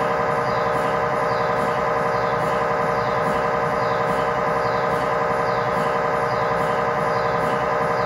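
GE MRI scanner's gradient coils buzzing through an axial T1 fast spin echo (FSE-XL) sequence: a steady, unbroken drone of many stacked pitches with a faint regular pulsing on top.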